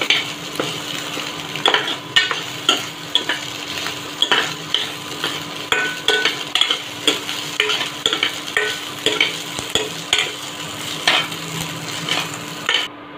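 Scrambled eggs frying in a kadai, a metal spatula scraping and knocking against the pan in quick irregular strokes over a steady sizzle. The sound cuts off just before the end.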